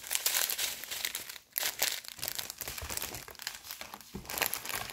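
Clear plastic packaging crinkling and crackling as it is handled, in an irregular run of quick crackles.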